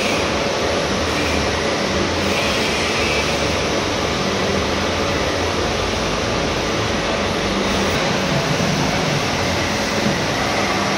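Horizontal milling machine running steadily while its gear cutter cuts teeth into a metal blank under coolant: an even mechanical drone with a low hum.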